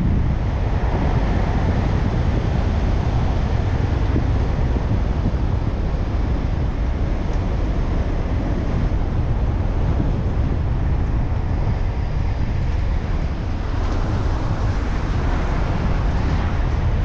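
Steady road and wind noise of a car driving: a continuous low rumble with a hiss over it, the hiss growing a little stronger for a few seconds near the end.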